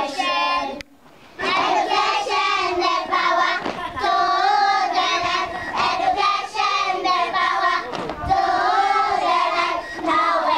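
A group of young girls singing together, with a short break about a second in before the song carries on.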